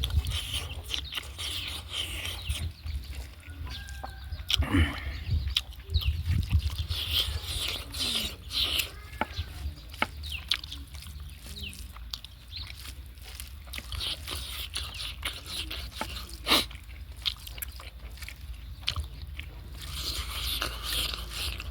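Chickens clucking, with scattered short clicks and smacks from someone chewing food.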